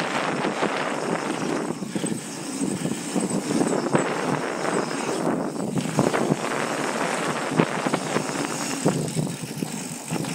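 Mountain bike riding fast down a dirt trail: steady wind rush on the microphone mixed with tyre noise on dirt and frequent rattling clicks and knocks from the bike over bumps.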